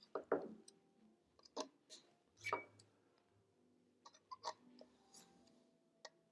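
Faint, scattered clicks and light taps of a small hand tool on metal, as a screw inside a 2013 Mac Pro that feels stripped is worked at.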